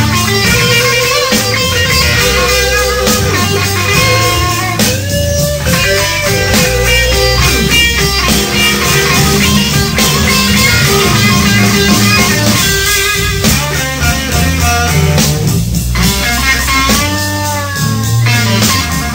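Blues-rock band playing an instrumental break live, with electric guitar and bass and a lead line that bends and wavers in pitch.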